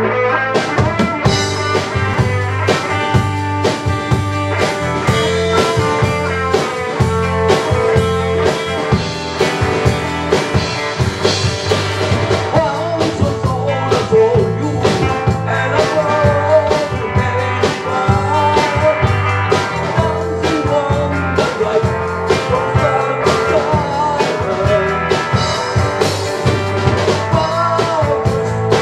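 Live rock band playing: a drum kit keeps a steady beat, about two hits a second, under held electric guitar notes.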